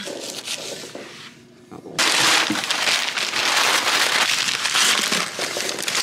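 Paper being crumpled and stuffed down into a vase: a dense crackling rustle, fainter at first and loud from about two seconds in.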